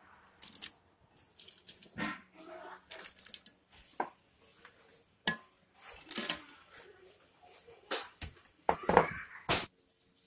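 Chopped raw onion being dropped by hand onto seasoned turkey necks in a pressure-cooker insert: irregular soft rustles and patters, with the loudest clatter near the end.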